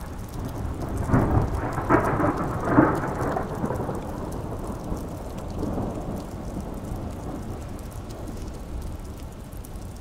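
A low rolling rumble that swells three times about one to three seconds in, then slowly dies away.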